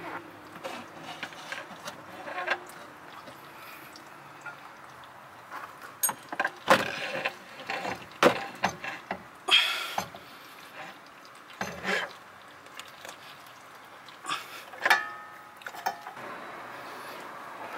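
Irregular metallic clunks, knocks and scrapes as the inner joint of a new CV axle is worked by hand into the transmission's axle opening. The sharpest knocks fall in the middle, with a brief rattle among them and another knock near the end.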